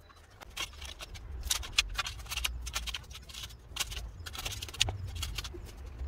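Spade digging and scraping in gravelly garden soil: a run of irregular crunching scrapes that starts about half a second in.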